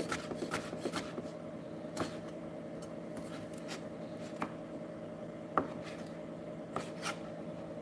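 Chef's knife slicing a tomato on a plastic cutting board. A quick run of light taps comes in the first second or so, then scattered single knocks of the blade on the board, the loudest a little past halfway. A steady low hum runs underneath.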